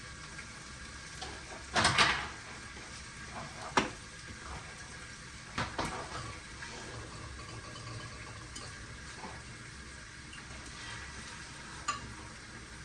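Kitchen handling sounds: a few knocks and clatters, the loudest about two seconds in, over a steady low hiss of bacon and sausage frying in the pan.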